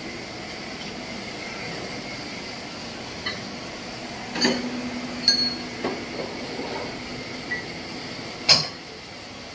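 Metal parts clinking and clanking in a workshop: a handful of sharp knocks over about five seconds, one of them ringing on briefly and the loudest near the end, over a steady background hum.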